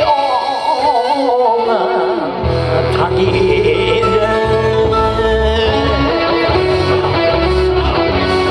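Japanese dance song for a fan dance: a solo voice sings a wavering, ornamented line, and a band accompaniment with deep bass and guitar comes in about two and a half seconds in and carries on steadily.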